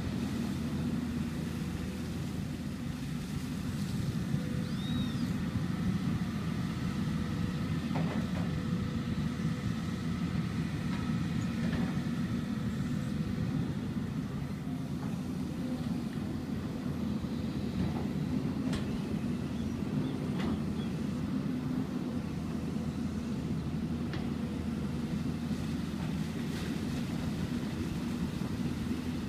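Hyundai excavator's diesel engine running steadily, a low, even rumble with a few faint clicks over it.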